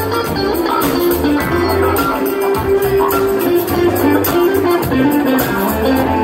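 A jam band playing live through a large festival sound system, heard from within the crowd: a guitar melody over bass and drums with a steady beat.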